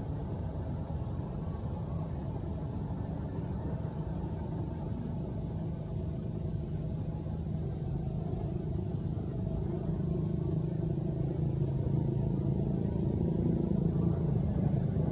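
A motor vehicle engine rumbling, growing steadily louder toward the end as it approaches.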